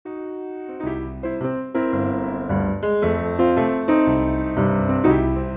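Background music led by piano or electric piano, with notes struck in a steady rhythm over a bass line.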